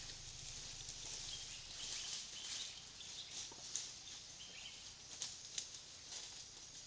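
Faint rustling of dry leaf litter under feeding African forest elephants, with a few sharp twig snaps: one about halfway through and two close together near the end. A faint steady high hiss runs underneath.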